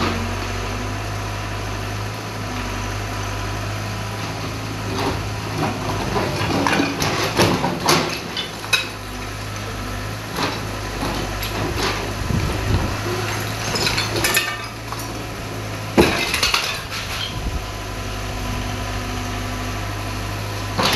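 Excavator engine running steadily while its bucket knocks against and breaks a concrete water tank. Scattered knocks and clatter of cracking concrete and falling rubble start about a quarter of the way in, with one sharp crack about three-quarters through.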